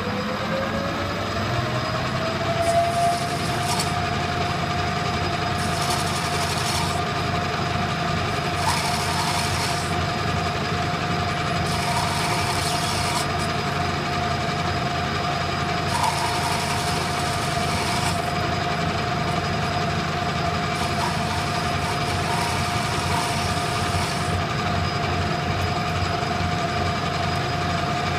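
Lance metal lathe spinning up to speed over the first few seconds into a steady whine and running on at that pitch. A carbide tool takes repeated short cuts into a spinning brass rod to shape a cone, each cut adding a hiss that lasts a second or two, about six times.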